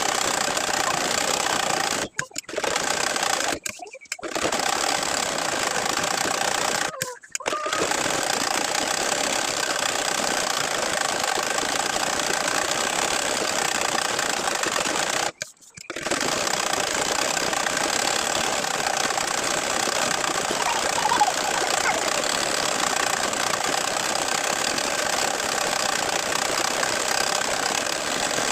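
Sewing machine running steadily as it stitches, stopping briefly four times and starting again.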